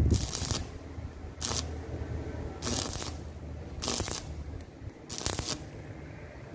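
Electric arc welder tack-welding a stainless steel pipe handle onto a barbecue grill frame: about five short crackling bursts of the arc, each under half a second, coming a little over a second apart.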